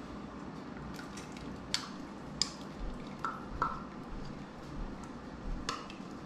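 Light clicks and clinks of kitchen utensils and dishware being handled, about half a dozen scattered through, over a steady low hum.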